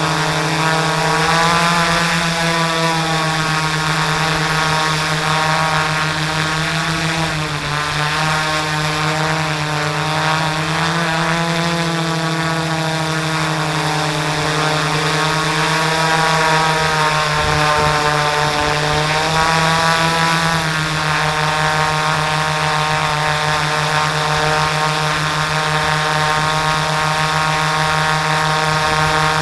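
H4 680 multirotor drone's motors and balanced propellers running in a hover, a steady buzzing drone with several tones that drift up and down together as the motor speeds adjust.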